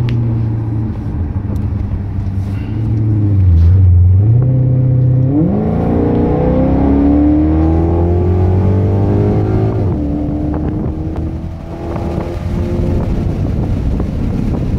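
2015 Maserati GranTurismo's V8 heard from inside the cabin, with its exhaust baffles open in sport mode. It runs steadily at low revs, then revs up in one long rising pull starting about five seconds in. About ten seconds in the pitch drops back and it settles to a steady cruise.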